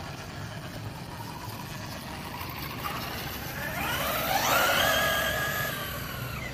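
ZD Racing 1/10 RC monster truck's brushless electric motor whining as the truck accelerates: about three and a half seconds in the whine rises steeply in pitch, holds high for a couple of seconds, then stops shortly before the end. A steady rushing noise runs underneath.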